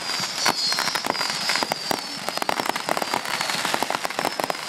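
Fireworks crackling: many rapid, sharp pops in dense succession, with a thin high whistle slowly falling in pitch over the first three seconds or so.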